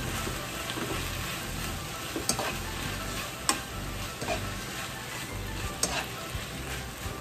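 Chicken, broccoli and carrot sizzling in a nonstick frying pan while being stir-fried, with a steady frying hiss and a few sharp clicks of the utensil knocking against the pan.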